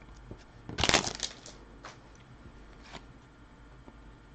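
Trading cards rustling and sliding against each other as a stack of Fleer Ultra hockey cards is sorted by hand. There is one louder burst about a second in, then two fainter ones.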